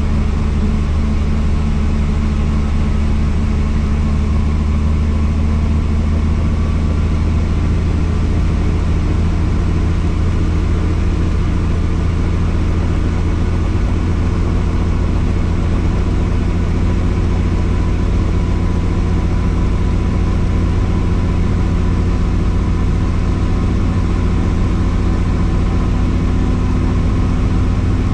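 Helicopter running at a steady pitch: constant turbine and rotor noise, a loud low hum with several fixed tones that hold unchanged.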